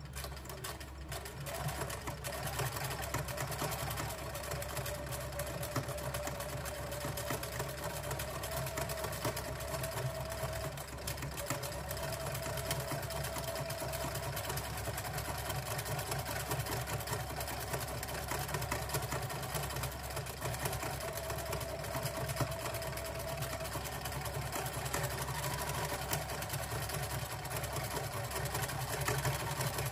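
Domestic electric sewing machine stitching steadily through a thick wool-embroidered canvas, its motor whine fading in and out as the sewing speed changes.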